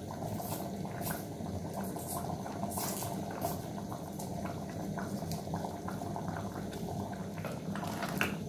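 Pea, beef and potato stew simmering in an aluminium pot on a gas burner: steady bubbling with small irregular pops. Near the end a spoon starts stirring through it.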